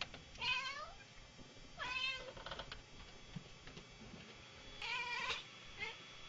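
A cat meowing: three meows of about half a second each, then a short one near the end.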